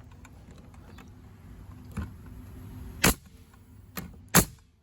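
Metabo HPT 30-degree framing nailer driving nails: faint clicks of handling, then sharp shots about two seconds in, three seconds in and twice near the end, the loudest about a second and a half apart. Loaded with the correct 30-degree nails, it is now firing properly instead of misbehaving as it did with the wrong 21-degree nails.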